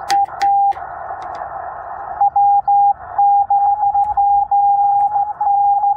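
Morse code (CW) tone of about 800 Hz from a Yaesu FT-891 transceiver over 20-meter band hiss. In the first second a short keyed burst comes with sharp clicks of a straight key. After a pause of hiss, a station's fast dits and dahs start about two seconds in and run on.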